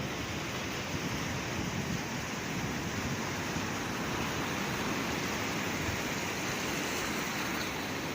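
Sea waves washing on a shore in a steady, continuous rush, swelling slightly in the middle.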